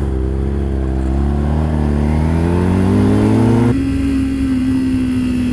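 Kawasaki Ninja 300's parallel-twin engine accelerating, its note rising steadily for about three and a half seconds; then the note drops suddenly and holds steady, as at a shift or a closed throttle.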